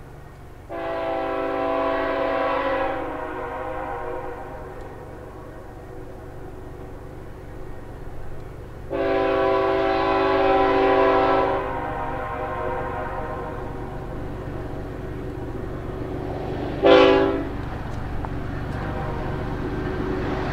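Horn of the approaching CN 3063 lead diesel locomotive sounding two long blasts and then a short one, the opening of the long-long-short-long grade-crossing signal. A steady low rumble from the locomotive and train runs underneath and grows louder as it nears.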